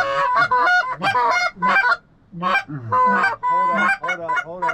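Geese honking: a rapid run of loud, short honks and clucks, some overlapping, with a couple of brief pauses.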